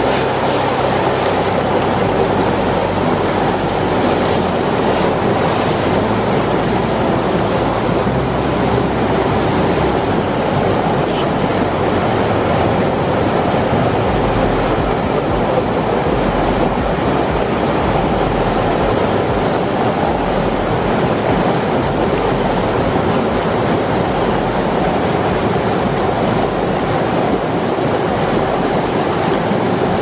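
Steady rush of a mountain stream's water running over rocks, an even, unbroken noise, the stream running high after days of heavy rain.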